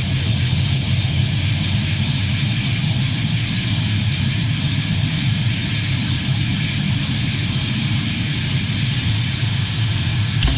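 Loud, sustained distorted electric guitar from a death crust band, a dense held wall of noise without drumbeats; the full band with drums crashes in right at the very end.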